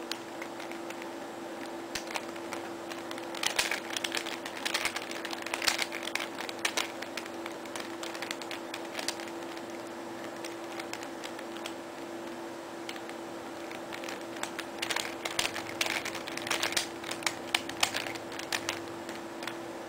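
Square-1 puzzle turned by hand: quick runs of plastic clicks and clacks as its layers are twisted, in two bursts, one a few seconds in and one in the second half. A steady hum runs underneath.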